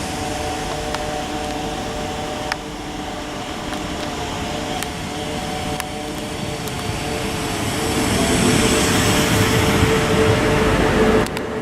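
Class 333 electric multiple unit humming steadily with a few faint clicks, growing louder for the last few seconds before cutting off suddenly near the end.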